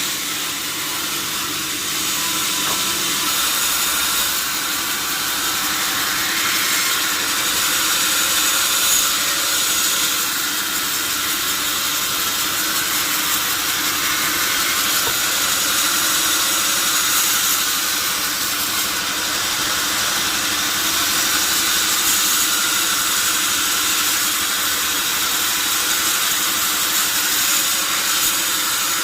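Sawmill saw cutting steadily through a log: an even, hissing noise that runs on without a break.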